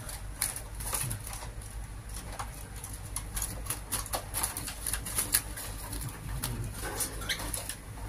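Irregular sharp taps and clicks as a hand moves about inside a round wire bird cage holding woodpeckers, with bird calls among them, one short rising call near the end.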